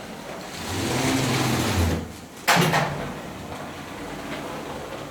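An engine on a concrete-pouring site runs louder for about a second and a half, then a single sharp bang about two and a half seconds in.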